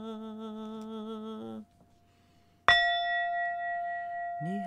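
A woman's held sung tone with vibrato stops about a second and a half in; after a brief hush a singing bowl is struck once and rings on steadily. Near the end her voice slides back in as a hum over the ringing.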